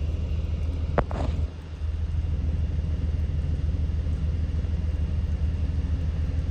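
Semi truck's diesel engine idling steadily, with a single sharp click about a second in.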